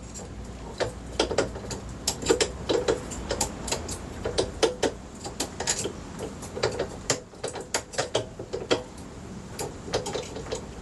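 Steel scribe poking and scraping inside a hole saw held in a drill press chuck, working loose the steel disc stuck in the cutter: irregular small metallic clicks and taps, several a second, some with a short ring.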